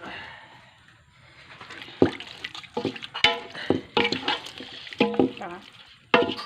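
Short, repeated vocal sounds from a person, starting about two seconds in after a quieter stretch.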